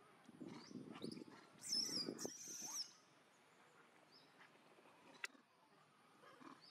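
A macaque squealing, two high, wavering cries in quick succession about two seconds in.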